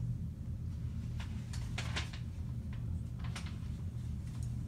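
A few light clicks and taps from a telescoping tripod stand being handled, over a steady low background hum.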